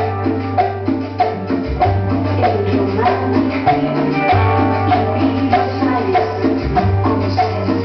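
Latin dance music played loud over a sonidero sound system, with long held bass notes and a steady percussion rhythm.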